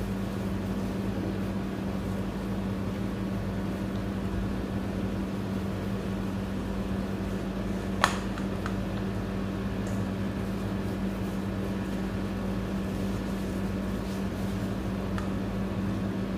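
Steady mechanical hum of an electric motor or fan, with one sharp click about halfway through.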